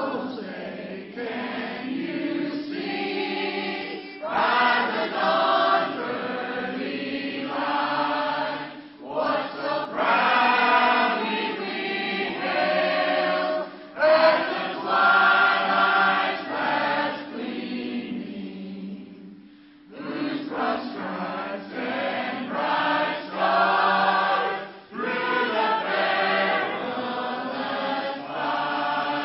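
A large mixed church choir singing together in sustained phrases, breaking off briefly about 18 seconds in and then carrying on.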